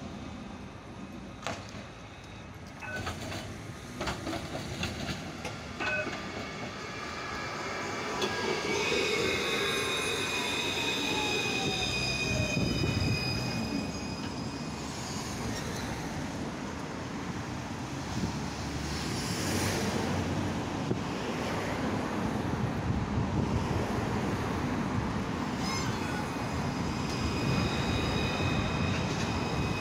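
Yarra Trams C1-class (Alstom Citadis) light-rail tram arriving at a platform stop: its motor whine falls in pitch as it brakes, with high-pitched squealing from the wheels on the rails. A few sharp clicks come early. Near the end a steady high wheel squeal starts up again.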